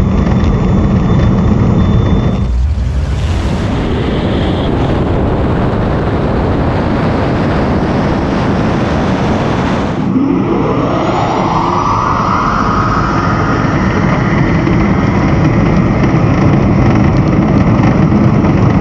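A car accelerating hard down a drag strip: loud, steady road and wind noise, with a whine that rises in pitch from about ten seconds in and then levels off. The sound changes abruptly twice.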